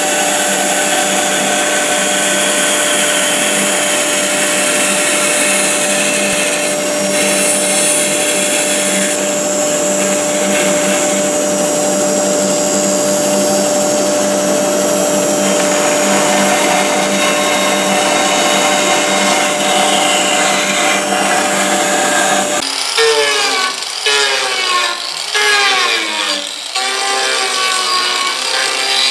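Bandsaw running and cutting through a stacked wooden ring blank, a steady hum under the noise of the cut. About 23 seconds in it gives way to an angle grinder working the wooden piece, its whine rising and falling as it bites and lets up.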